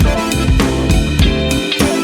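Background music with a steady drum-kit beat: kick, snare and rimshot hits about four times a second over sustained tones, with the bass dropping out briefly near the end.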